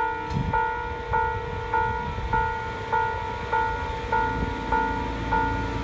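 Japanese railway level crossing alarm sounding its electronic bell, struck evenly about one and a half times a second. About four seconds in, a low, steady drone comes in as the yellow Isumi Railway diesel railcar's engine works to pull away from the platform.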